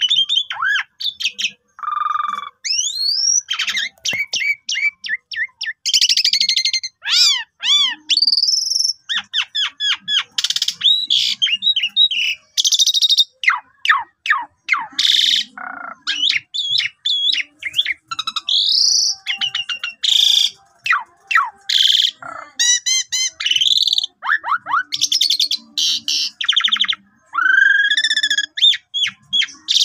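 Asian pied starling (jalak suren) singing a long, varied song. It mixes slurred whistles that sweep up and down, rapid strings of repeated notes and short harsh rasping notes, with only brief pauses between phrases.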